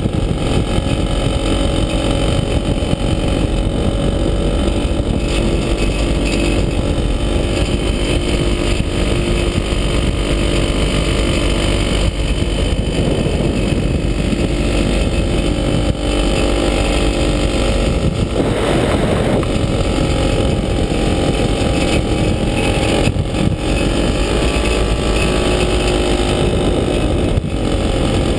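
The engine of a Falcon XP single-seat ultralight runs steadily in flight, a continuous drone with air rushing past. Its pitch dips and recovers slightly near the end.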